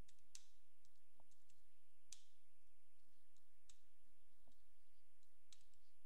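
Computer keyboard keystrokes: a handful of separate key clicks at irregular intervals, as a few keys are pressed one by one.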